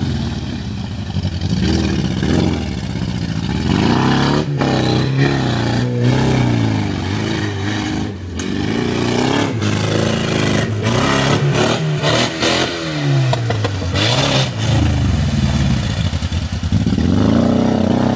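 Off-road vehicle engine revving up and down repeatedly, working hard over rough ground, with scattered knocks and clatter from the vehicle body.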